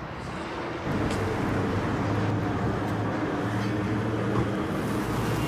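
A steady low motor hum that grows louder about a second in and then holds even.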